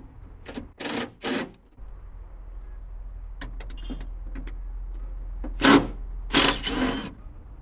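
Small cordless impact gun with a 10 mm socket running in short bursts to back out car door bolts: two brief bursts about a second in, then two louder, longer ones near the end.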